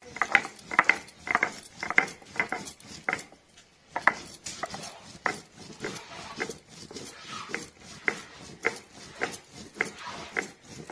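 Stone roller rocked back and forth on a flat grinding stone (sil-nora), crushing dried red chillies: a scraping knock on each stroke, quick and dense for the first few seconds, then steady at about two strokes a second.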